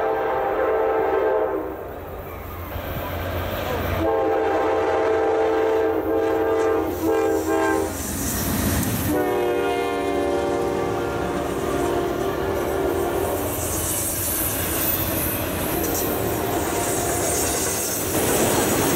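Norfolk Southern diesel freight locomotive sounding its multi-chime horn in long blasts as it passes close by, the chord dropping in pitch as the locomotive goes past. Then the rumble and clickety-clack of intermodal freight cars rolling by on the rails.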